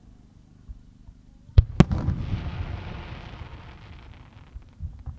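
Aerial firework shell bursting: two sharp bangs close together about a second and a half in, followed by a long rumbling echo that slowly fades. A couple of faint pops come near the end.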